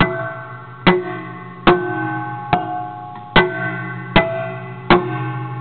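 Homemade amplified noise box struck with a pencil, about once every 0.8 seconds. Each tap gives a sharp click followed by a lingering metallic ringing chord, and its pitch changes from tap to tap.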